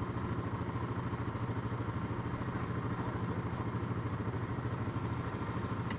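ATV engine idling steadily, its exhaust pulsing evenly, with a short click near the end.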